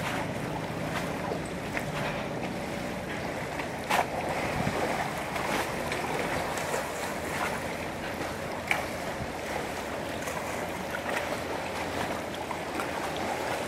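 Wind and choppy lagoon water lapping, a steady outdoor noise with a low hum near the start that fades out. Two sharp clicks stand out, one about four seconds in and one near nine seconds.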